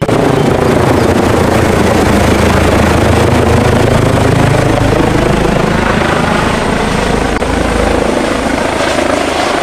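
Helicopter rotor and engine noise running steadily and loudly. It starts and stops abruptly, like an added sound effect.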